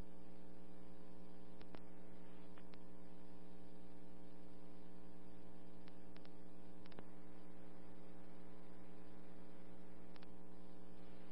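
Steady electrical hum with a few faint scattered clicks: the open background of a recorded dispatch radio channel between transmissions.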